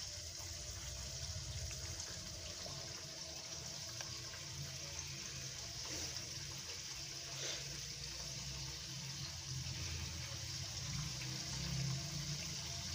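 Steady faint hiss with a low hum underneath, and a faint tick or two.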